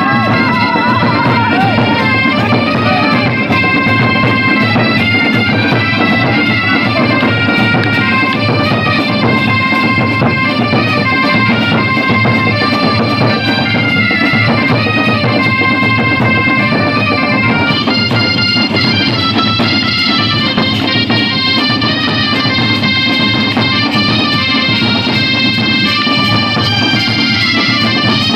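Loud, continuous instrumental music: a melody of held notes stepping up and down, over a thick, unbroken low accompaniment.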